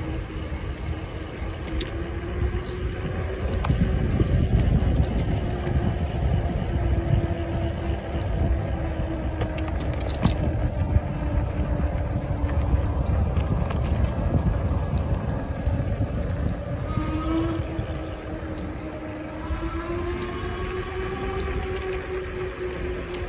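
E-bike electric motor whining at a steady pitch that drifts up and down with riding speed, under heavy wind buffeting on the microphone.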